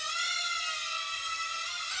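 High-pitched whine of a small battery-powered hovering flying toy's propeller motors: a steady tone that wavers slightly and dips briefly in pitch near the end.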